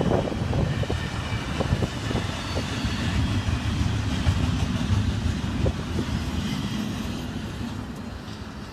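Double-stack intermodal container cars of a freight train rolling past on steel rails: a steady low rumble with scattered wheel clicks, fading near the end as the last cars roll away.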